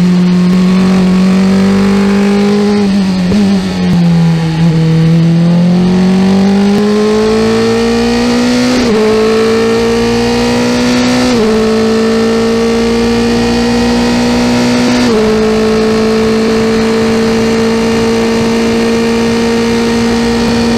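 Dallara F317 Formula 3 car's Mercedes-HWA four-cylinder engine heard from the cockpit at racing speed. It eases back and downshifts for a corner about three seconds in, then accelerates hard with upshifts at about nine, eleven and fifteen seconds, each a sudden drop in pitch, and holds a steady high note on the final straight.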